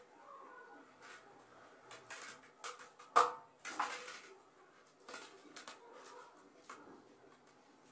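Scattered light knocks and clicks of hands and a sponge against a stainless steel kitchen sink, with the loudest knock about three seconds in followed by a short rubbing scrape.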